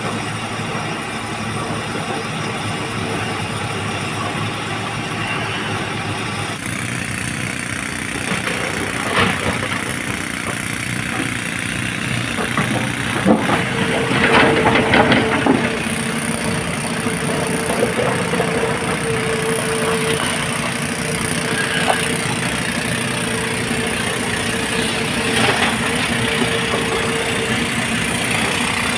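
Hyundai excavator's diesel engine running steadily while loading crushed blue stone, with a few bursts of clatter around the middle and a steady whine that joins about halfway through.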